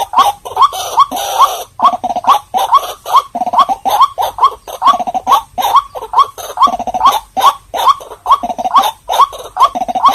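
White-breasted waterhen calling continuously: a fast run of loud, short, rising croaking notes, about two or three a second, with harsher grating sounds between them.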